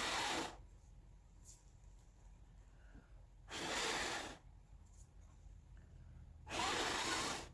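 A person blowing hard, in three long puffs of breath about a second each and some three seconds apart, to push wet acrylic pour paint outward in a bloom.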